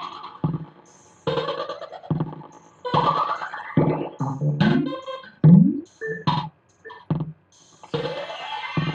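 Experimental electronic music: synthesizer and effects-laden sounds in abrupt, chopped fragments, several of them sweeping upward in pitch, with sudden cut-offs and short gaps between them.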